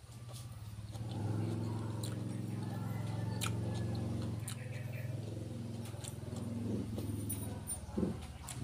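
A motor vehicle engine running steadily, swelling up about a second in and holding. Scattered crisp crunches of raw vegetables being chewed sit on top.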